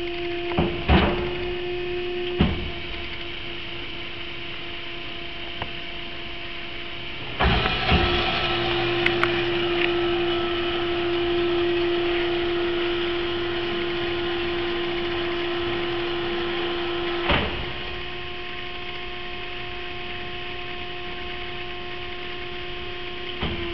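CY350 hydraulic band saw running with a steady machine hum, with a couple of clunks in the first few seconds. About seven seconds in it turns louder and rougher for about ten seconds, then ends with a clunk and drops back to the steady hum.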